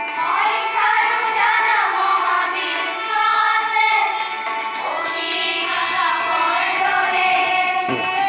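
Background music: a song with a singing voice gliding through a melody over instrumental accompaniment.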